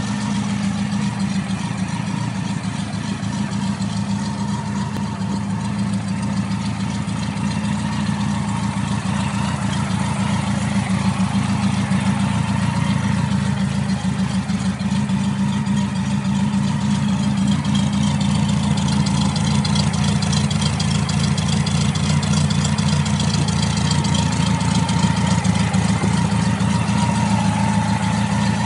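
BMW K100 café racer's inline-four engine, laid flat in the frame, idling steadily.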